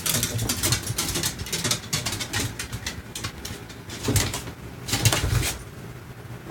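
A pet dog making snuffling noises and low grunts, in a run of short irregular strokes, with louder low grunts around the middle and latter part.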